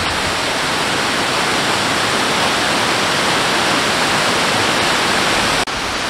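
Small woodland waterfall tumbling over rocks: a steady, loud hiss of falling water that dips sharply for an instant near the end.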